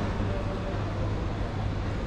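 Airport terminal ambience: a steady low hum under an even wash of noise, with indistinct distant voices.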